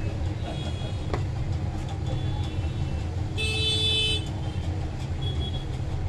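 Steady low rumble of road traffic, with a short vehicle horn toot about three and a half seconds in, lasting under a second.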